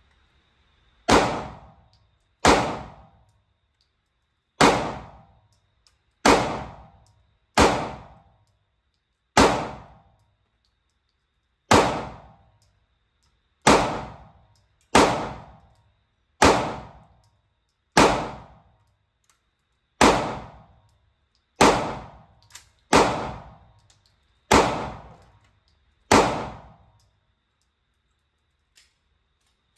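A pistol fired in slow, deliberate single shots, sixteen loud reports about one to two seconds apart, each followed by a short echo off the walls of an indoor range. A fainter bang sounds once between them in the later part.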